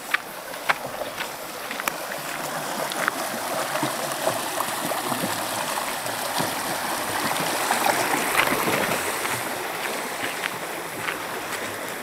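Shallow mountain stream rushing and splashing over flat bedrock and a small cascade, swelling louder a little past the middle and easing again toward the end. A few sharp clicks sound in the first few seconds.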